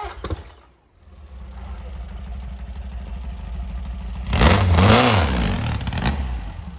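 Two-wheel-drive off-road buggy engine running hard on a steep hill climb, building slowly. About four seconds in it revs loudly for nearly two seconds, pitch swinging up and down twice, as the buggy tips over on the slope, then drops back to a lower drone.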